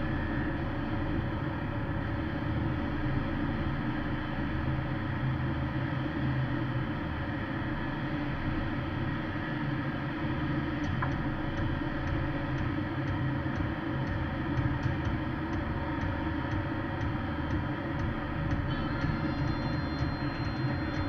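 Steady low road rumble and engine drone inside a Porsche Cayenne S cruising on a snow-covered highway. A faint regular ticking joins about halfway.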